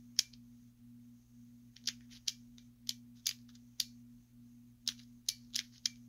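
Plastic pieces of a pyraminx puzzle clicking as its layers are twisted: about ten sharp clicks in irregular runs. A steady low electrical hum sits underneath.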